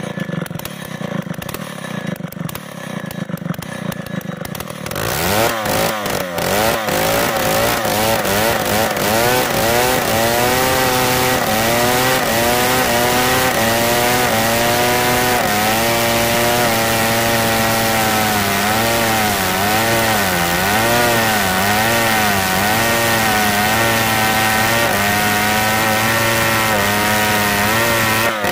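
Large two-stroke chainsaw with a long bar, running at low speed for the first few seconds, then opened up about five seconds in and ripping lengthwise through a big log. The engine runs loud and steady at full throttle, its pitch dipping and recovering as the chain bites.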